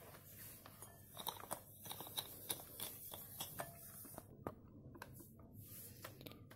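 Faint, irregular clicks and taps of kitchen utensils and a mixing bowl being handled.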